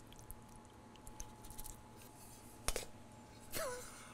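Quiet kitchen handling while mac and cheese is put into a baking dish: faint clicks, and one sharper tap about two and a half seconds in, then a short murmur of a voice near the end.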